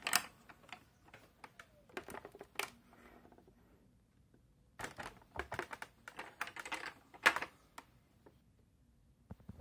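Clusters of plastic clicks and knocks from the hinged cover on top of a Philips T12R630 television cabinet as it is handled, lifted and pressed shut: a burst at the start, another about two seconds in, and a longer rattling run of clicks in the second half.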